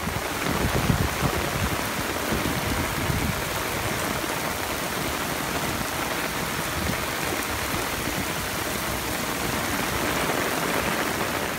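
Torrential rain pouring onto a brick sidewalk and the road, a dense, steady hiss of water hitting the wet paving.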